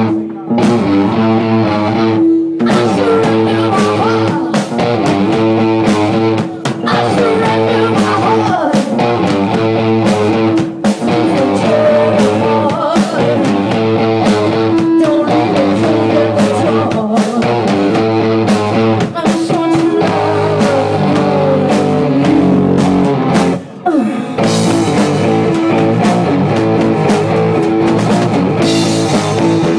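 Live rock band playing loudly: electric guitar with drums and a singing voice.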